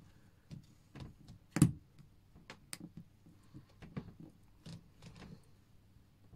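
Scattered light clicks and taps of small watch parts being handled as the movement holder is fitted into the watch case over the battery, with one louder click about a second and a half in.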